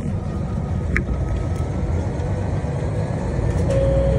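Diesel engine of a KiHa 40 railcar running with a steady low rumble. There is a brief click about a second in, and a steady humming tone comes in near the end as the sound gets a little louder.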